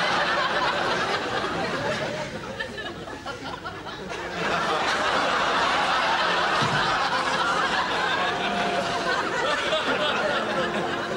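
Studio audience laughing in two waves: the first laugh fades away about three seconds in, and a second, louder laugh rises about four seconds in and carries on to near the end.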